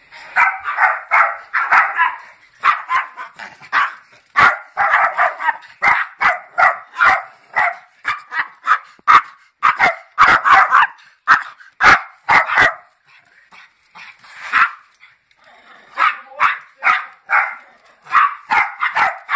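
Several chihuahuas yapping in quick, high-pitched runs of barks, alarm barking at a person coming in. There is a short lull about two-thirds of the way through.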